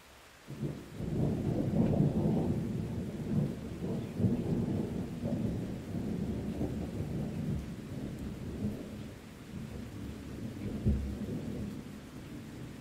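Deep rumbling thunder rolls in about half a second in and keeps rolling with rises and falls, with a brief louder clap near the end, over steady rain.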